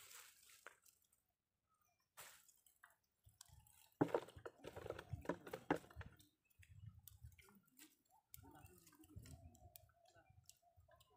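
Faint wet handling of a fine-mesh fishing net: a hand rustling through the mesh, small fish and leaves, with small squishes, drips and clicks and a louder burst of rustling about four seconds in.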